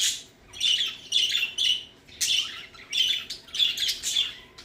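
Pet budgerigars giving a quick string of short, harsh chirping calls, several a second in little clusters, excited for a treat.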